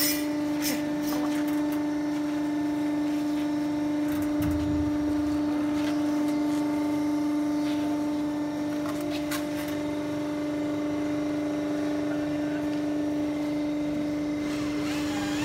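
Interlocking brick machine's motor running with a steady, even hum, with a few light knocks as the freshly pressed brick on its wooden pallet is handled.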